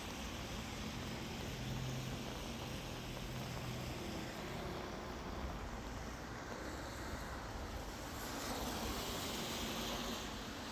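Steady rain falling, an even hiss, with a swell in the hiss about eight seconds in.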